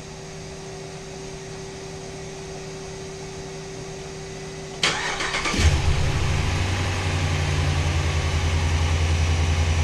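A steady background hum, then about five seconds in the 2013 Dodge Ram 1500's 5.7-litre Hemi V8 cranks briefly, catches and settles into a steady idle. This is its first start after new spark plugs were fitted in a tune-up.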